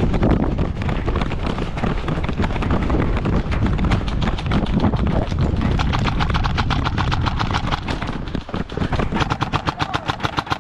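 Airsoft electric guns (AEGs) firing rapid full-auto bursts, a fast even rattle of many shots a second that grows densest near the end, over a heavy rumble.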